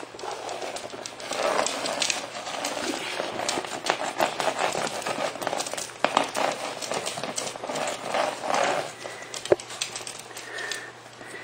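Toy poodle puppies moving about and playing: an irregular patter of many small clicks and scuffles.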